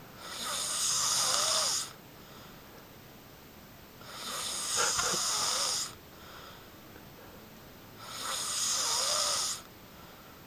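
A person snoring loudly: three long, rasping snores about four seconds apart, each lasting just under two seconds with a wavering whistle-like tone inside it.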